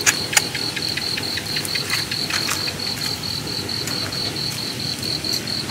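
A cricket chirping in a fast, even, steady pulse, with scattered sharp clicks and crackles from metal tongs on the wire grill over glowing charcoal, the two loudest clicks just after the start.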